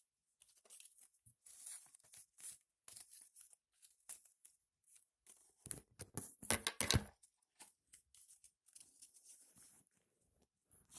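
Paper rustling and crinkling in short irregular bursts as a handmade paper figure and its paper clothes are handled, with a louder stretch a little past halfway.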